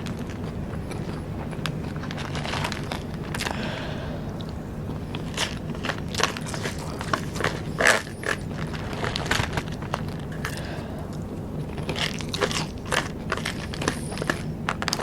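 Close-miked biting and chewing of rice paper snacks, with irregular crunches and crackles, the loudest crunch about halfway through.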